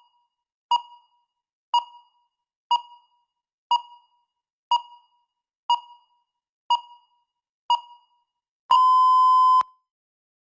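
Electronic countdown timer beeping: about eight short, quickly fading beeps, one a second, then one longer steady beep lasting just under a second that marks the countdown reaching zero and the end of preparation time.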